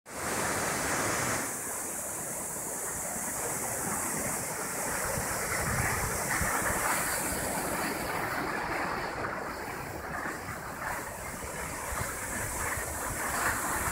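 Skis gliding over packed snow, with wind across the microphone: a steady rushing hiss.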